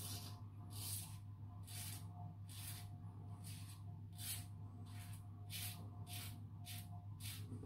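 Razorine Flatboy double-edge safety razor with a Kai blade scraping through lathered stubble in short strokes, about two a second, a dozen or so in all. A steady low hum runs underneath.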